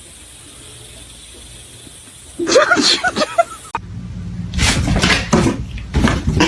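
A cat yowling and hissing, starting about a third of the way in after a faint steady hiss.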